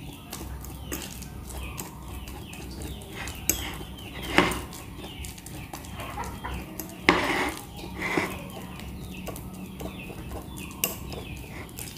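A metal fork mashing very ripe bananas in a glass bowl: soft squelching with many small clicks and scrapes against the glass, and a few louder knocks. Chickens cluck in the background.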